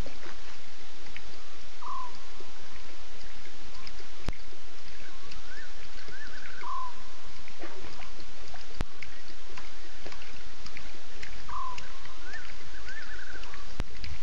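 Night bush ambience at a waterhole: a steady hiss with a bird calling over it. A short falling whistle repeats about every five seconds, and a quick run of higher rising-and-falling notes comes twice between them.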